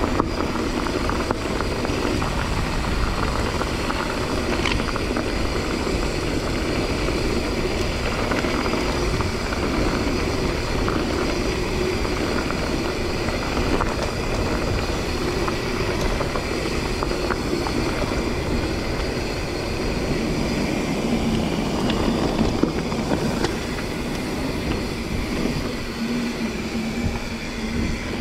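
Mountain bike riding over a dirt and gravel trail, heard from a point-of-view action camera: a steady rumble of tyres and wind buffeting the microphone, with a few sharp clicks and rattles from the bike.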